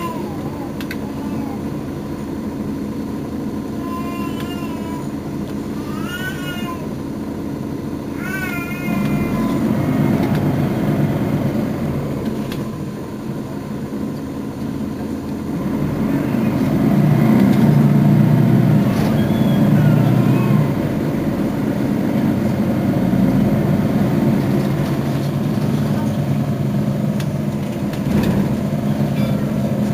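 Mercedes-Benz Citaro facelift city bus's diesel engine idling at a standstill, a steady low hum that swells louder for a few seconds around the middle. Several short high chirps sound over it in the first third.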